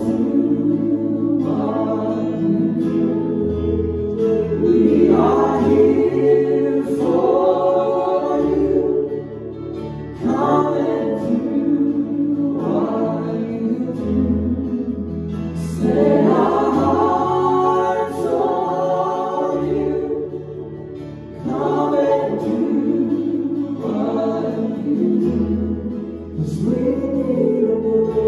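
Live worship song: voices singing into microphones in phrases of a few seconds each, over sustained low accompaniment.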